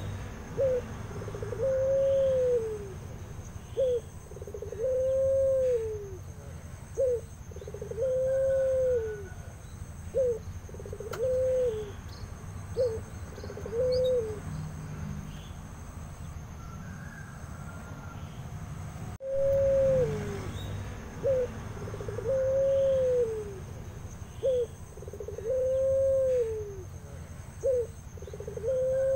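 Barbary dove (puter pelung) cooing: low coos in which a long, drawn-out, arched coo alternates with a short clipped one, a pair about every three seconds. The coos break off for about five seconds past the middle, then resume.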